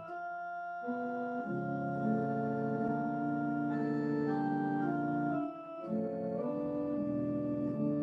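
Organ playing slow, held chords that change every second or so, with a short break between phrases about five and a half seconds in.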